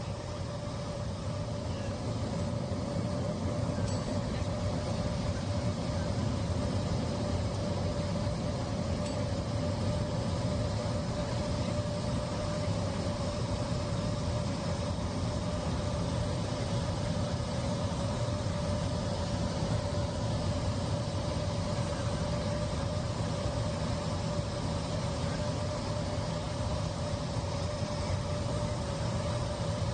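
Steady jet airliner cabin noise in flight: a constant low rushing drone of engines and airflow, with a steady humming tone over it.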